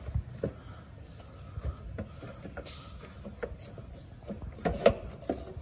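Snapper mower drive shaft and pivot bracket being moved by hand in the pivot bushing: scattered light metal clicks and knocks, the loudest about five seconds in.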